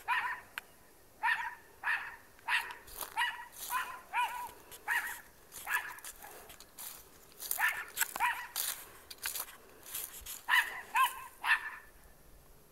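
Small dog barking over and over in short, high-pitched barks, with a brief pause about halfway through: alarm barking at a trash bag on a fence that it takes for an intruder.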